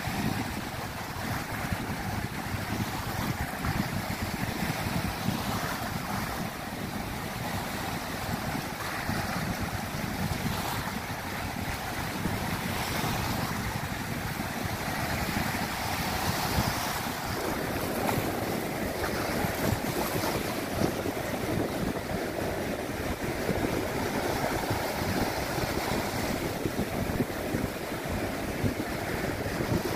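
Small sea waves washing in over rocks and sand in a steady, rushing hiss, with wind buffeting the microphone.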